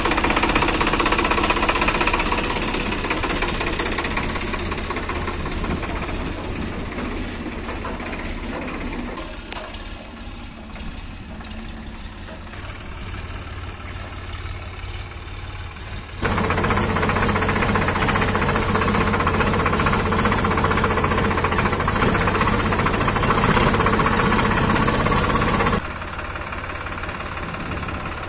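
A Sonalika DI 42 RX tractor's diesel engine running steadily. It gets abruptly louder about 16 seconds in and drops back suddenly near the end.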